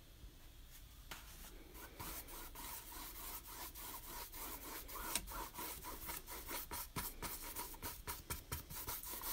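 Paintbrush scrubbing black paint onto a stretched canvas in quick, repeated back-and-forth strokes. The strokes start about a second in and grow louder.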